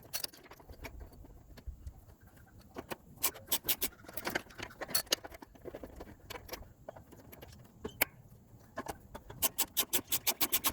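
Metal hand tools clicking and clinking on a jaw puller as it is worked against a rusted-on lawn mower blade adapter. The clicks are scattered, then come in quick runs, most densely near the end.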